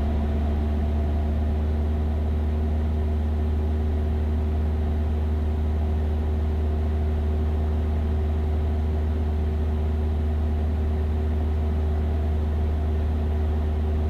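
Cessna 172's piston engine and propeller droning steadily in cruise, an even low hum with no change in pitch or power.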